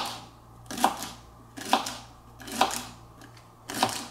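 Kitchen knife cutting across a bundle of celery stalks onto a plastic cutting board: five chops, about one a second.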